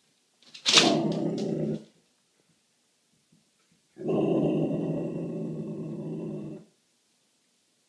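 A puppy growling twice: a short growl with a sharp start about half a second in, then a longer growl of nearly three seconds from about four seconds in.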